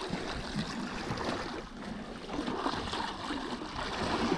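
Water splashing and sloshing at the boat's side as a hooked sturgeon thrashes at the surface beside the hull.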